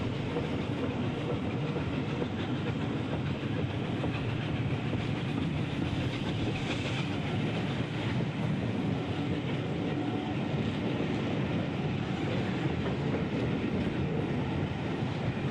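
Steam-hauled passenger train running along the line, heard from an open carriage window: a steady, even rush of wheel and track noise.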